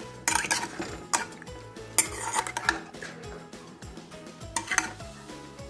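A utensil scraping and clinking against a dish while food is mixed and handled, in several irregular sharp clinks and scrapes. Faint background music runs underneath.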